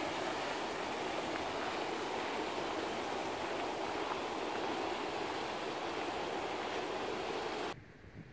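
Water spilling steadily from a wooden chute into a creek, making a continuous rush that cuts off abruptly near the end.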